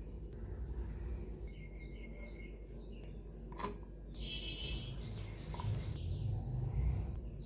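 A steady low hum with a few faint bird chirps about two seconds in. A single click sounds shortly after.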